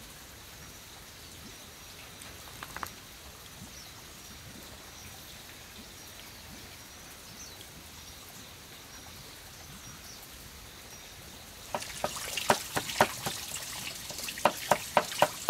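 Faint, steady background ambience, then, about twelve seconds in, a knife chopping red chillies on a wooden chopping board in quick, uneven strokes, a few per second.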